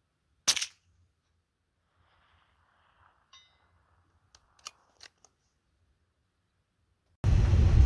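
A single .22 LR rifle shot from a bolt-action Christensen Ranger: one short sharp crack, followed a few seconds later by several faint clicks. Near the end, a loud rush of wind noise starts suddenly.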